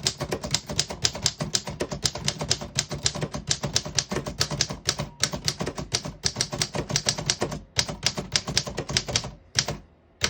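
1926 Underwood three-bank portable typewriter being typed on: a fast, even run of key strikes, about six a second, broken by a few short pauses.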